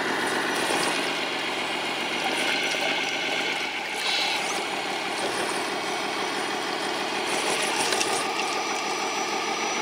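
Electric drivetrain of a four-motor, six-wheel-drive RC semi truck whining steadily as it crawls over rocks through a shallow creek, with stream water rushing around it.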